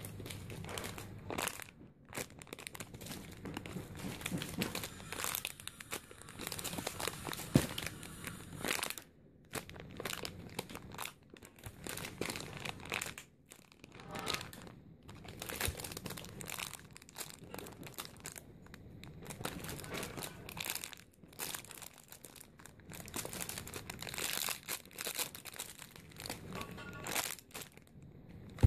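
Thin plastic packaging bags crinkling as they are handled, in irregular bursts with short pauses, plus one sharp click about seven and a half seconds in.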